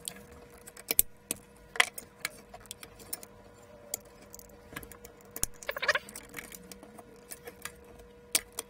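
Metal clinks and clicks of tools and the metal bar clamp as the clamp holding a small CRT is unscrewed and taken off. The clinks come irregularly, with a short rattle about six seconds in, over a faint steady hum.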